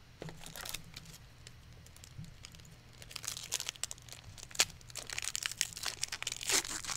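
Foil wrapper of a Magic: The Gathering Commander Legends booster pack crinkling and tearing as it is worked open by hand, a dense crackle from about three seconds in.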